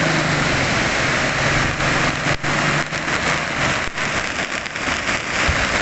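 Heavy rain and flowing floodwater making a steady, dense hiss. A low engine hum runs under it for about the first half, then fades out.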